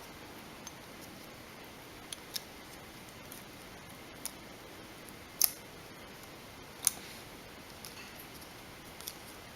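Scattered small sharp clicks and ticks of a thin tool prying at the Galaxy Nexus phone's glued-in charging-port part, with two louder clicks past the middle.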